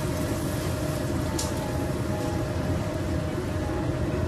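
A metal spatula scrapes and pushes stir-fried beef and cucumber out of a wok onto a plate, with a short scrape about a second and a half in. Under it runs a steady low rumble with a faint hum.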